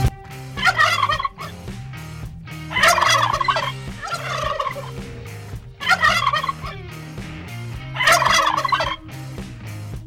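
Turkey gobbling: rapid rattling gobbles in several separate bursts about two seconds apart.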